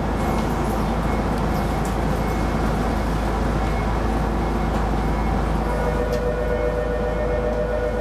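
Keisei Line rapid electric train running along the track, a steady rumble of the moving train. A pair of steady tones joins in about six seconds in.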